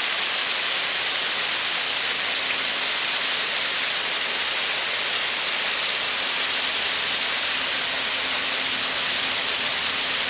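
Double-cascade waterfall spilling over rocks: a steady, even rush of falling water.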